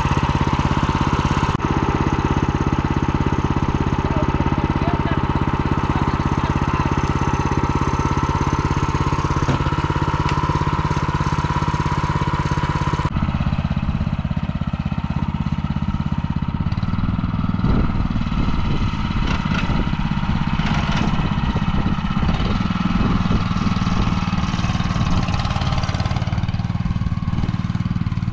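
MTZ-09N walk-behind tractor's small single-cylinder engine running steadily. In the second half it runs lower and more unevenly under load as it pulls a loaded trailer, with knocks and rattles from the trailer.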